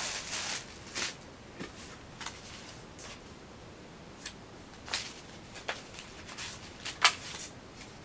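Handling noises: a string of light clicks and knocks, about one a second, with a sharper knock near the end, as products and packaging are moved about.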